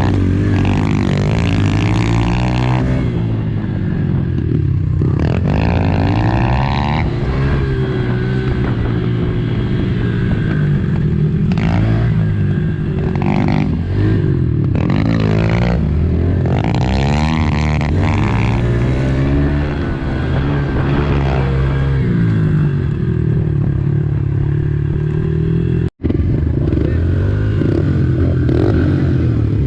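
Modified Honda CRF110 pit bike's small single-cylinder four-stroke engine being ridden hard, its revs climbing and dropping again and again. There is a momentary break in the sound near the end.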